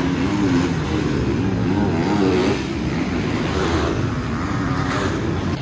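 Motocross bikes racing on the track, their engines revving, rising and falling in pitch over and over as the riders work the throttle.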